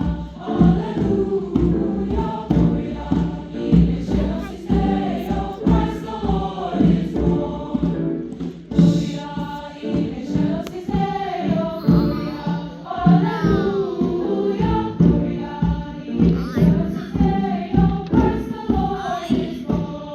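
Choir singing a song with rhythmic accompaniment.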